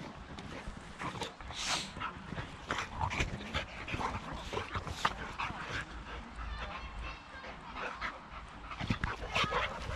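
Two boxer dogs play-wrestling, panting and whimpering in many short, irregular sounds.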